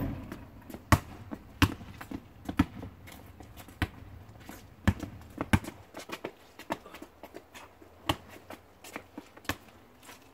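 A basketball bouncing on an asphalt driveway during one-on-one play. There are about a dozen sharp, unevenly spaced knocks.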